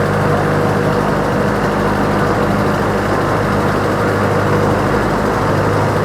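Ferry boat's engine running at a steady speed, a constant low hum with an even rush of noise over it.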